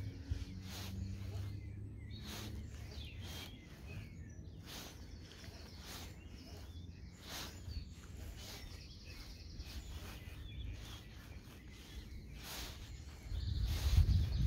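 A string of short, sharp sounds at irregular intervals, roughly once a second, as a jerkbait is worked on a baitcasting rod and reel, over outdoor ambience with a few bird chirps. A low rumble swells about a second before the end.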